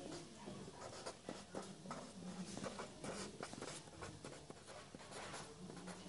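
Pencil writing on paper: faint, irregular scratching strokes as words are written by hand.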